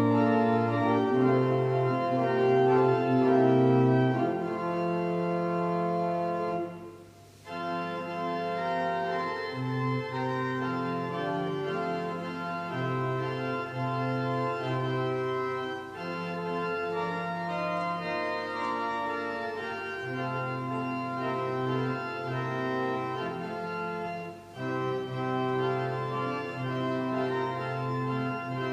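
Organ playing a hymn tune in held chords, with no singing. The music breaks off briefly about seven seconds in, and again for a moment near the end.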